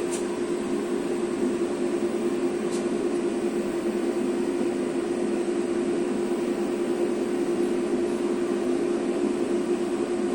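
CNC lathe running with its spindle turning: a steady machine hum with one constant tone, as the turret jogs in along X with the tool not yet cutting.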